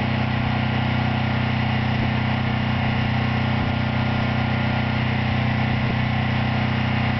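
Gas engine of a pressure washer running at a steady speed, an even drone with no change.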